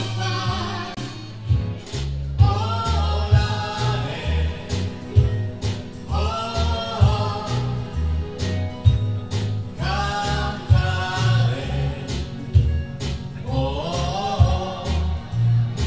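Live band music: keyboard backing with a steady drum beat and bass, and a singer's sung phrases coming roughly every four seconds.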